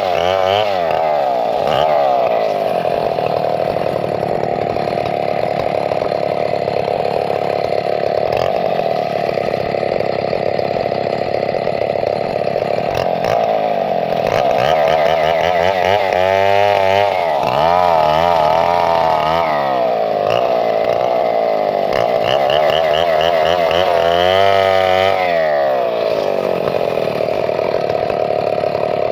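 Chainsaw engine running continuously at high speed, its pitch sweeping down and back up three times: near the start, in the middle, and again a few seconds later.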